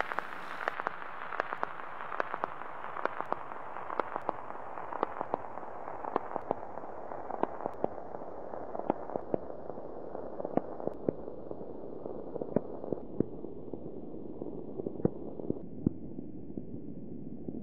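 Steady hiss with irregular sharp crackles and pops, several a second, growing gradually duller as its high end fades away.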